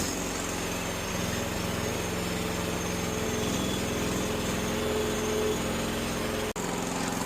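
Small gasoline engine of a mini skid steer idling steadily while it warms up after a cold start, with a split-second gap near the end.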